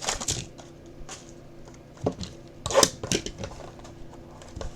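Hands working open a sealed trading-card box: a few sharp clicks and knocks, the loudest about two and three seconds in, with light rustling of cardboard and wrapper between them.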